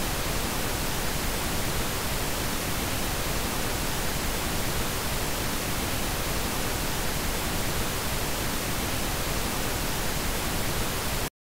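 Steady static hiss, even from low to high pitch with no tones or rhythm, switching on and cutting off abruptly.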